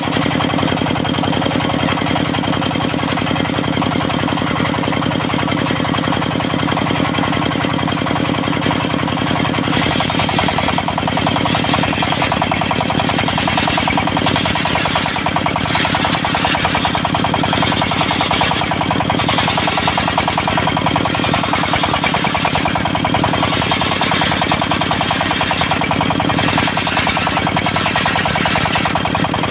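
Diesel engine driving a portable circular sawmill, running steadily. About ten seconds in, the disc blade starts cutting teak, adding a high hiss that swells and fades through the rest of the cut.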